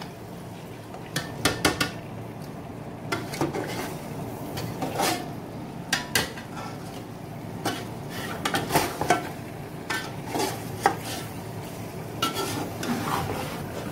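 A long metal spoon scraping and clinking against a large metal pot in irregular strokes, as pieces of fish are turned to coat them in thick masala.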